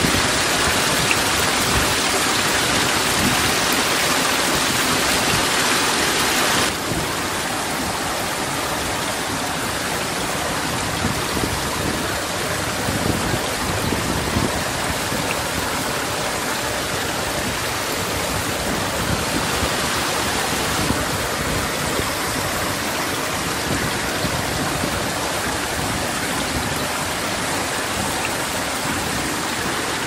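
Steady rush of a waterfall plunging into its pool. About seven seconds in it cuts abruptly to a quieter, even wash of rain and running water with scattered small drips.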